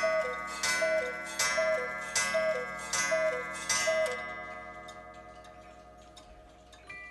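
Large carved Forester's-house cuckoo clock calling the hour: six two-note cuckoo calls, each high then lower, about three-quarters of a second apart. Each call comes with a strike that keeps ringing and slowly fades. Ticking goes on through it, and a new run of tones starts right at the end.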